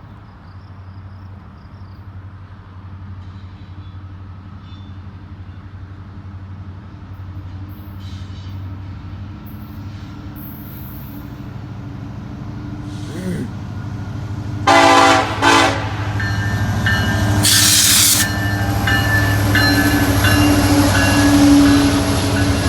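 Approaching BNSF coal train led by EMD SD70ACe diesel locomotives: the engines' low rumble builds steadily as the train nears. About 15 seconds in the lead locomotive's air horn sounds two short blasts, followed near 18 seconds by a brief loud rush of noise as the locomotives draw level and pass loudly.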